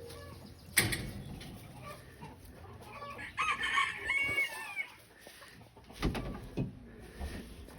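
Backyard chickens clucking and calling, with a drawn-out, wavering call of about a second and a half around three and a half seconds in. A sharp knock sounds about a second in, and a few dull thumps come near the end.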